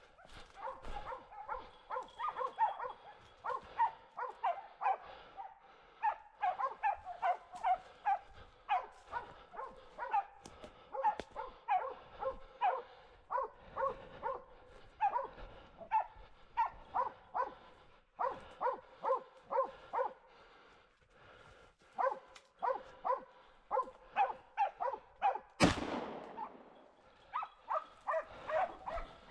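Hunting dogs barking in quick, repeated runs with short pauses, baying at a wild boar they have brought to a stop. Near the end comes a single sharp, loud bang with a short ringing tail.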